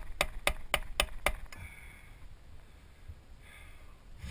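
Rubber mallet tapping a wooden block held against a cotter pin leg, bending it flush against the castle nut on a propeller shaft. Quick, evenly spaced taps, about four a second, that stop about a second and a half in.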